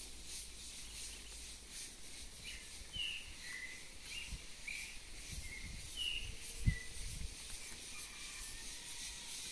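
Field ambience: insects chirring high up in pulses about twice a second, with a bird giving short chirps again and again. A single dull bump about two-thirds of the way through.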